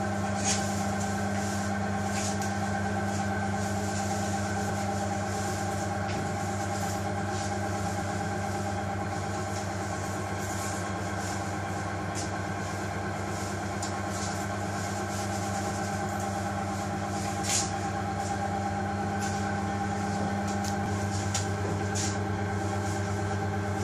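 A steady machine hum with a higher whine above it, unchanging throughout, with a few faint clicks.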